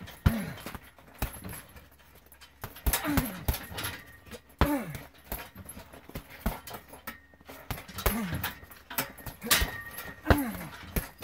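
Kicks landing on a hanging heavy punching bag as sharp thuds, several seconds apart. About five of them come with a short grunt from the kicker that drops in pitch.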